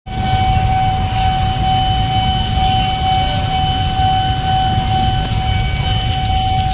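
Steady low rumble of motorbike and street traffic at a railway level crossing. A single unbroken high tone runs through it.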